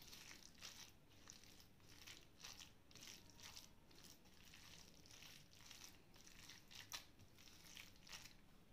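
Faint, irregular squishing and scraping of a hand kneading a wet, spiced minced fish mixture against a steel plate, with one slightly sharper tick about seven seconds in.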